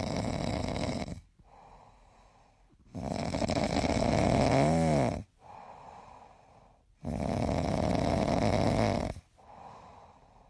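A sleeping dog snoring: three long snores about four seconds apart. The middle one carries a short squeaky, whistling note near its end.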